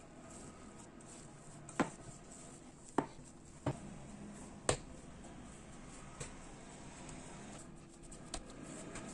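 Hands kneading and pressing soft dough in a glass bowl and then on a wooden table, with four sharp knocks in the first five seconds and two fainter ones later.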